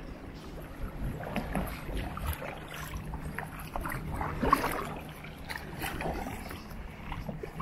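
Kayak paddles dipping and pulling through river water, with small irregular splashes.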